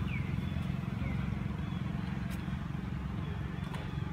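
Outdoor background: a steady low rumble, with short high chirps falling in pitch about once a second and a faint click or two.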